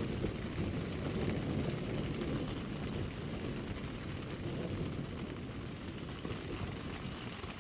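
Constant rain falling on a tent's fabric, a dense rushing noise with a low rumble underneath, easing slightly toward the end.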